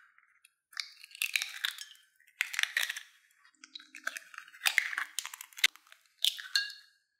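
Eggshells cracking and crunching as they are broken open and pulled apart by hand over a ceramic bowl, in several short crackly bursts one after another.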